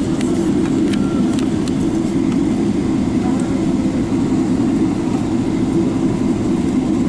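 Steady roar and rumble heard inside the cabin of a Boeing 777-300ER rolling out on the runway just after touchdown, spoilers raised. It gets slightly louder at the start, with a few faint rattles.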